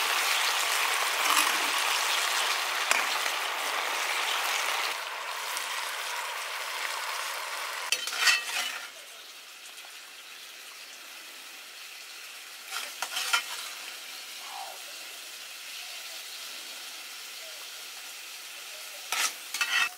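Fish sizzling in a spicy sauce in a metal wok, with a ladle clinking against the pan now and then. About eight seconds in the sizzle drops to a much quieter hiss, with a few more clinks of the ladle and spatula.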